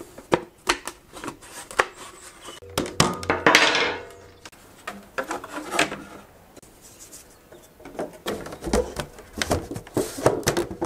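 Thin laser-cut plywood pieces clattering and knocking against each other and the steel workbench as they are handled and slotted together, with a short scraping rub a little over three seconds in.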